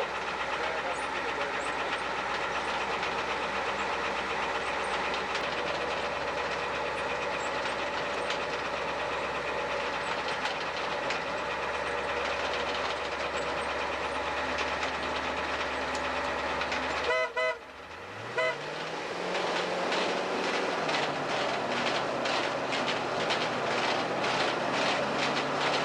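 Heavy logging-machine engine running steadily. About seventeen seconds in, the sound briefly drops away, then the engine revs up, settles at a higher pitch, and a rapid, regular clatter comes in.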